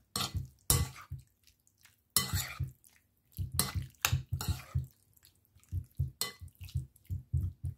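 Metal spoon stirring cubed raw beef in a soy-sauce marinade in a ceramic bowl. The spoon scrapes and clinks against the bowl in irregular strokes with short pauses, over wet sounds of the meat being turned.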